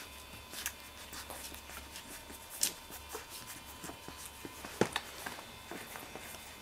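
Newborn Miniature Labradoodle puppies suckling from their mother: a scatter of soft wet clicks and smacks, with a few sharper clicks, the loudest about five seconds in.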